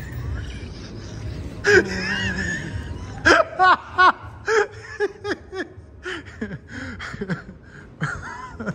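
A person laughing hard in a run of short bursts, about two to three a second, that trail off toward the end.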